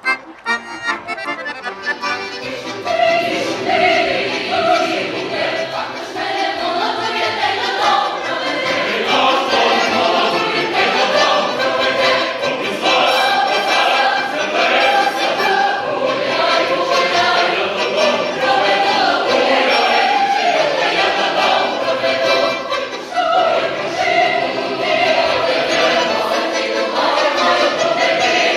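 A Ukrainian folk choir of mixed voices singing a folk song with accordion accompaniment. The accordion plays alone for the first couple of seconds, and the voices come in at about three seconds.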